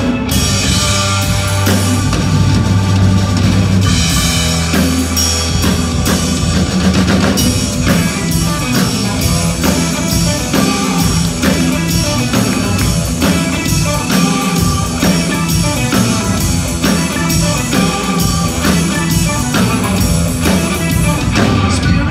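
A live band playing an instrumental passage: drum kit, electric bass and electric guitar, loud and steady.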